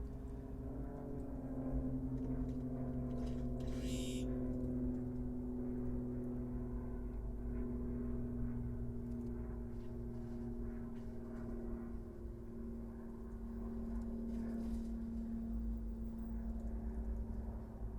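Car running while driving: a steady low rumble with a held droning tone, and a short hiss about four seconds in.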